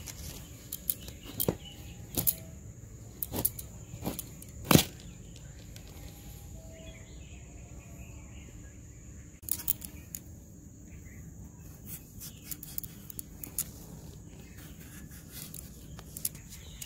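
A bottle gourd pushed against a bonti's curved iron blade and cut through, giving a few sharp, separate crunching knocks, the loudest about five seconds in.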